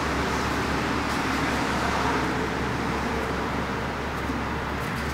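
Steady background noise: a constant low hum under an even hiss, with no distinct event.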